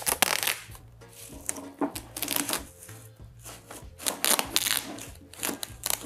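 Plastic rubbish bag crinkling and rustling in several bursts as it is handled, over background music with a steady bass beat.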